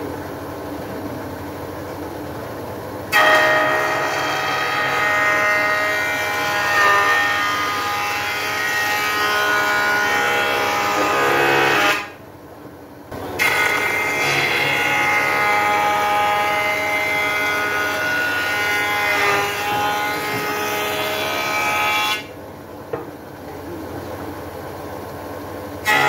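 Woodworking power machinery running with a steady multi-tone whine, heard in two long stretches that start and stop abruptly, with quieter machine noise between them.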